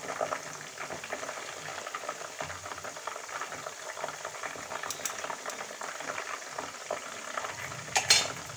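Chicken pieces deep-frying in hot oil, a steady crackling and bubbling sizzle as they are lifted out with a wire strainer. A short clack sounds near the end.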